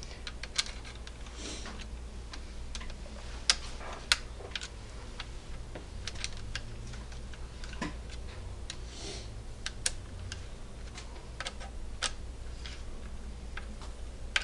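Small irregular metallic clicks and light scrapes as an AR-15 rear sight is tightened down onto the upper receiver's rail.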